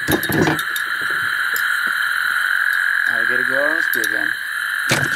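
A steady night chorus of frogs keeps up throughout, with a few deeper croaking calls that rise and fall in pitch about three to four seconds in. Sharp knocks come just at the start and again near the end.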